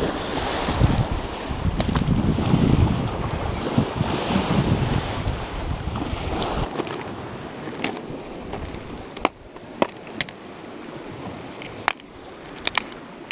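Wind buffeting the microphone over surf washing against rocks, loud for the first six seconds or so, then dropping. In the quieter second half come several sharp clicks and taps of a clear plastic lure box being opened and handled.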